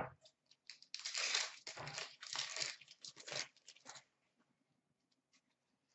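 Foil wrapper of a hockey card pack crinkling and tearing as it is opened, in several rustling bursts over about three seconds, then quiet.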